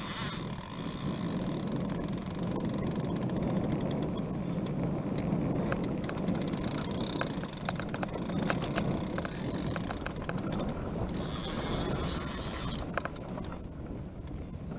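Outboard motor of a wooden river boat running steadily at low speed, with a run of faint light clicks in the middle.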